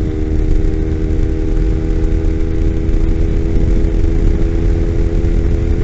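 Kawasaki Ninja 250 motorcycle engine running at a steady speed on the highway, heard from the rider's seat under a heavy rush of wind on the microphone.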